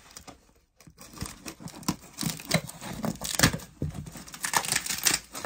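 Packing tape on a cardboard shipping box being cut with scissors and torn away, with crinkling and rasping. The tearing starts about a second in and goes on in irregular strokes.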